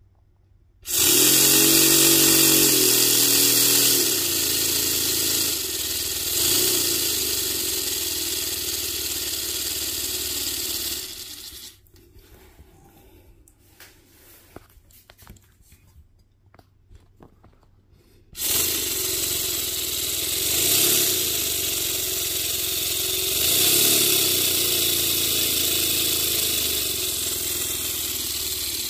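Air rushing through a paper model inline-twin air engine with a low motor hum, starting about a second in, cutting off at about 11 seconds, then starting again at about 18 seconds. Faint scattered clicks fill the gap.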